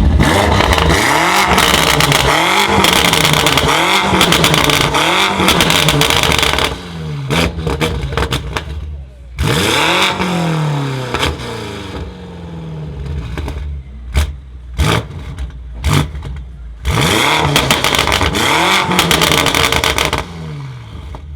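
BMW M5 F90's twin-turbo V8 through a SuperSprint exhaust, revved again and again, its pitch rising and falling with each blip. In the middle stretch come sharp pops and crackles on the overrun between revs, and a few more revs follow near the end.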